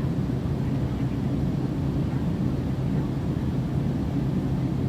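Steady low rumble of an airliner's engines and airflow heard from inside the passenger cabin, even and unchanging.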